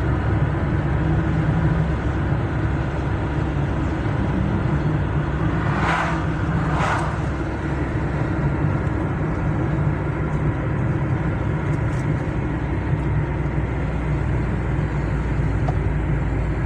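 A car in motion, its engine and road noise a steady low rumble, with two brief swishes about six and seven seconds in.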